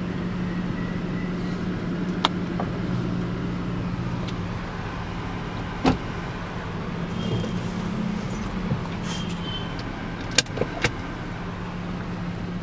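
Tata Nexon car running, heard from inside the cabin: a steady engine and road hum, broken by a few short sharp clicks.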